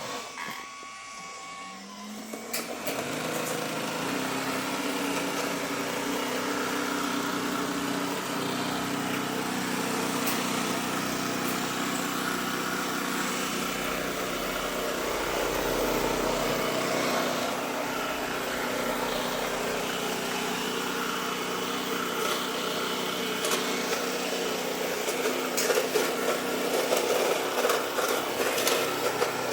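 Electrolux Pure i9.2 robot vacuum spinning up about two seconds in, then running with a steady motor hum and an abnormal noise, with irregular louder knocks near the end.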